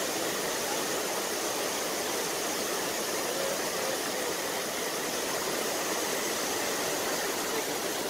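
Small waterfall, with river water spilling in a thin sheet over a straight ledge: a steady, even rush of falling water.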